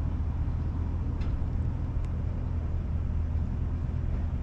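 An engine idling steadily with a low, even drone, with a couple of faint ticks over it.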